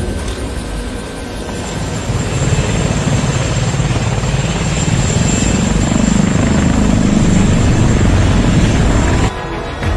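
Helicopter-style rotor whir of a giant multi-rotor craft lifting off: a fluttering beat of spinning blades that grows louder over the first few seconds, with a thin steady high whine over it. It cuts off abruptly about a second before the end.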